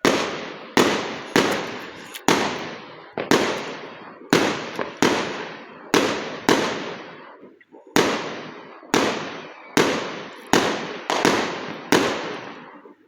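Fireworks going off in a rapid irregular series of loud bangs, about one or two a second, each trailing off in an echo.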